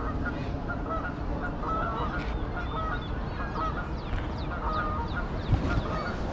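Birds calling over and over, short honking and chirping calls, over a steady low rumble. A sharp thump about five and a half seconds in.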